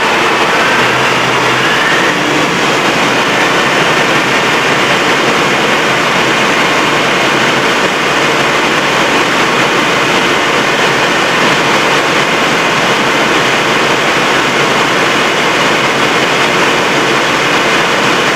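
Large diesel engine running steadily on a dynamometer: a loud, even, unbroken engine noise with a faint whine that glides up and down in pitch now and then.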